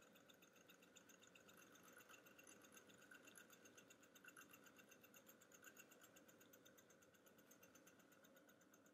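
Small K-Dee Steam alpha-type Stirling engine running after heating up: its pistons and flywheel linkage make a faint, fast, even ticking rattle.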